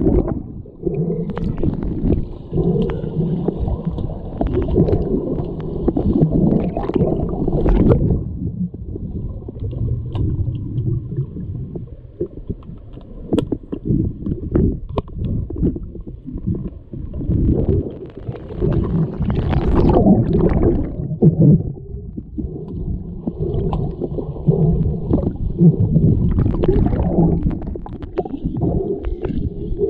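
Underwater hockey play heard through a submerged microphone: a muffled churning rumble of moving water and swimmers' bubbles, with many scattered sharp clicks and knocks.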